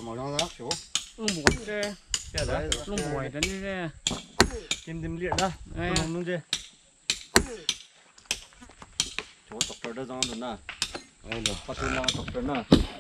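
Repeated irregular sharp knocks, like blows of a tool, several in quick succession at times, with people talking.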